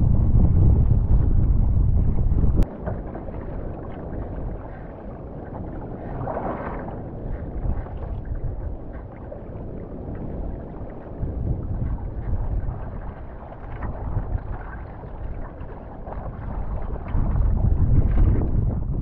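Storm wind buffeting the microphone over rough water rushing past a sea kayak, cutting off abruptly about two and a half seconds in. Then quieter water sloshing around the hull with splashes from paddle strokes and gusts of wind, swelling again near the end.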